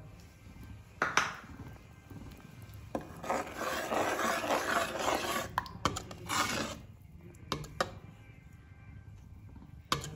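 Metal ladle scraping and stirring round a metal kadhai of liquid gravy, loudest between about three and seven seconds in. There is a sharp knock about a second in and a few light clinks later on.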